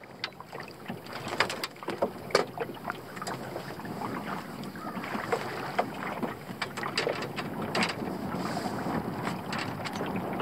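Choppy water lapping and splashing against the side of a canoe, with wind buffeting the microphone. Scattered short knocks and splashes run throughout.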